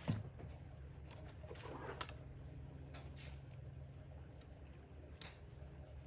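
Quiet handling of archery gear between shots: an arrow drawn from a leather belt quiver and nocked on the bowstring, with a few light clicks and rustles over a low steady hum.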